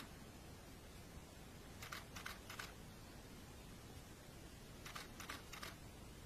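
Faint hiss broken twice by a quick run of three or four short, sharp clicks, about two seconds in and again about five seconds in.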